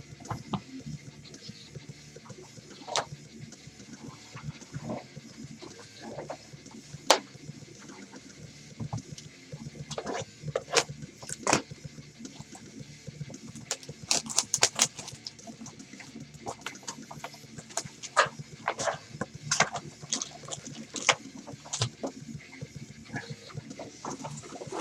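Basketball trading cards and card packs being handled: irregular rustling, crinkling and clicking, busiest from about ten seconds in.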